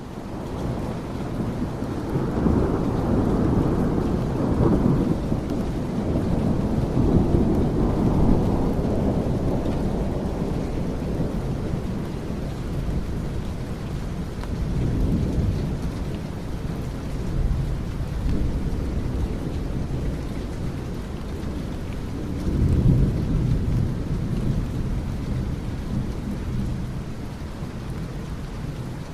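Steady rain with thunder rumbling several times, the strongest rolls a few seconds in and again near the end. It fades in from silence at the start.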